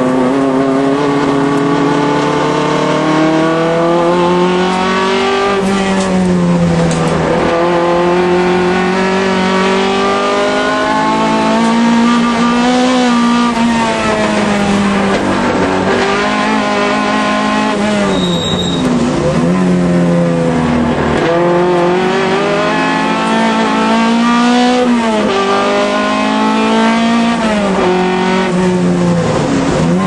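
Alfa Romeo race car's engine running hard on track. The revs climb steadily through each gear, then drop sharply at each upshift or braking point, over and over.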